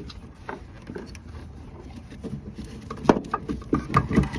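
Plastic clicks and knocks of hands refitting a headlight bulb assembly into a car's headlight housing: a few scattered taps, then a quicker run of clicks and knocks from about three seconds in.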